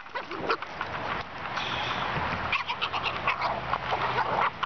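A Boston terrier making dog sounds as it plays with a large Jolly Ball, over a steady rough noise with many short scuffs and knocks.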